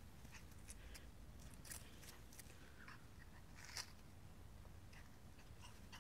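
Near silence: a faint low rumble with a few soft rustles and ticks of movement through grass and dry leaves, the clearest about four seconds in.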